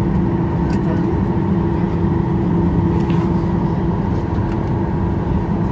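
Cabin noise inside a Boeing 737 on its landing roll: the jet engines give a steady hum over a low rumble from the runway.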